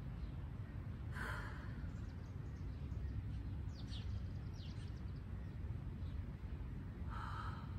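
A woman's deep breaths while she holds a bear plank: one breathy exhale about a second in and another near the end, over a steady low rumble.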